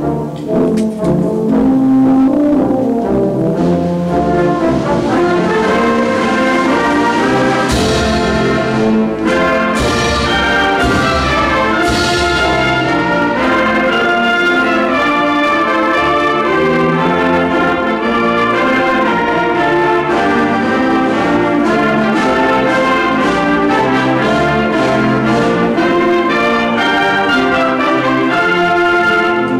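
High school concert band playing a full passage, with brass leading over the woodwinds and percussion. It sounds loud and unbroken, with two bright swells about eight and twelve seconds in.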